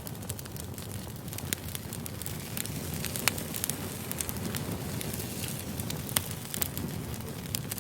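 Firewood burning: a steady low rumble of flames with constant crackling and sharp pops, two of them louder, about three and six seconds in.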